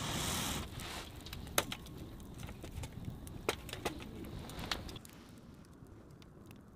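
Wood fire crackling in a metal fire stand, with a few sharp pops over a low steady rustle of the flames that grows quieter near the end.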